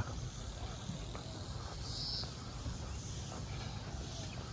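Outdoor ambience: a steady low rumble of background noise, with a short high chirp about two seconds in.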